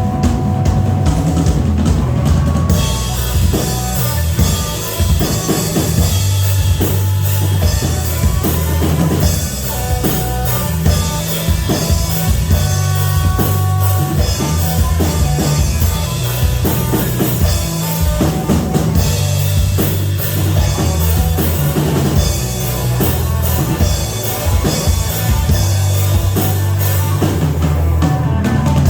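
Live rock band playing an instrumental passage, with a drum kit driving it on kick and snare over sustained bass notes and held pitched instrument lines.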